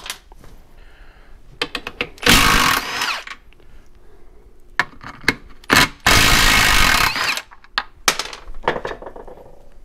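Cordless power tool spinning out the perimeter bolts of a transfer case, in two runs of about a second each, with clicks and knocks of the tool and bolts between them.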